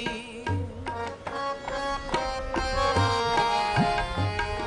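Instrumental interlude of Sikh kirtan: tabla playing a steady rhythm under harmonium's held melody notes, with a few bass-drum strokes bending upward in pitch near the end.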